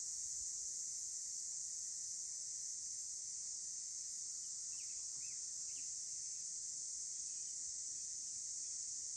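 A steady, high-pitched insect chorus from crickets or similar insects, running without a break. A bird gives four short chirps in quick succession a little past the middle.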